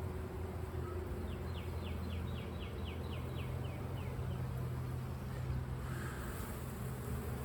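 Honeybees humming steadily around an open hive. A bird's rapid trill of about a dozen quick high notes sounds over it about a second in.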